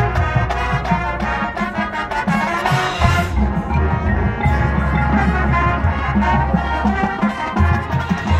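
High school marching band playing its field show, with drums and front-ensemble mallet percussion under the band and a crash about three seconds in.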